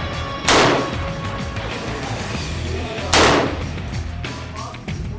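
Two single shots from an AR-15 rifle, about two and a half seconds apart. Each is a sharp crack that trails off briefly.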